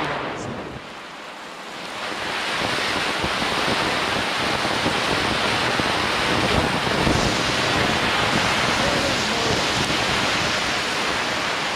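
Large cone firework fountain spraying with a loud, steady rushing hiss. It dips briefly about a second in, then builds back up and holds.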